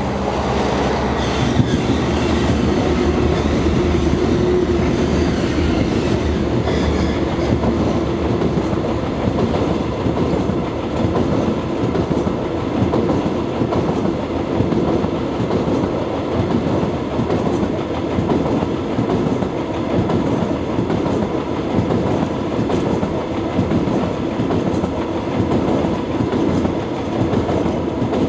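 A train of KiwiRail DL class diesel locomotives passing close by. A low diesel engine hum is heard in the first couple of seconds, then a long, steady run of wheels clattering over the rail joints as the string of locomotives rolls past.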